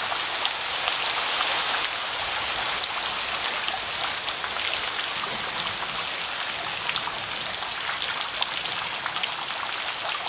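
Steady rain falling, a dense even hiss with many sharp individual drop patters on leaves and water.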